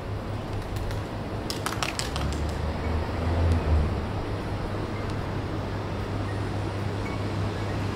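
Outdoor town street ambience: a steady low rumble with a swell in the middle and a brief cluster of sharp clicks about two seconds in.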